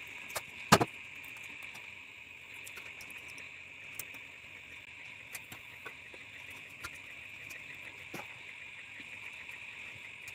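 Scattered small clicks and taps of hands working adhesive tape and a plastic mouth whistle onto a still ceiling fan blade. The sharpest click comes just under a second in. A steady high-pitched drone of night insects runs underneath.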